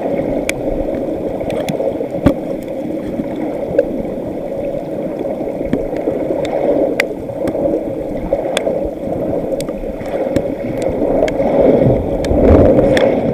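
Underwater recording from a HydroMoth hydrophone in a shallow lagoon during a hurricane: a steady, dense rumble of storm-churned water with scattered sharp metal-on-metal clinks from the recorder's water-bottle rig. It swells louder near the end, then cuts off suddenly.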